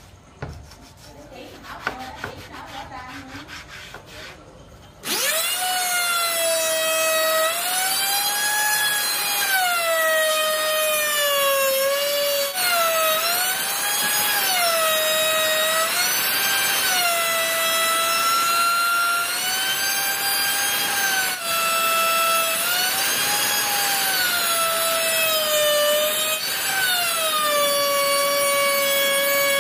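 An electric woodworking power tool is switched on about five seconds in and cuts wood: a loud high whine that sags in pitch under load and climbs back, again and again. Before it, a few light knocks and handling sounds.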